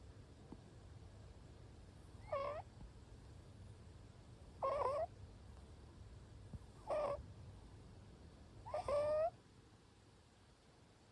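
Short-legged Munchkin cat snoring in its sleep: four high-pitched, wavering snores about two seconds apart, each about half a second long.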